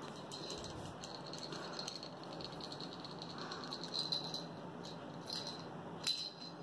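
Light, irregular rattling made of many small clicks, with one sharper click about six seconds in.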